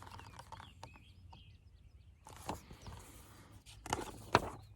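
Quiet outdoor background with faint bird chirps in the first second or so, then a soft rustle and a few short sharp knocks near the end.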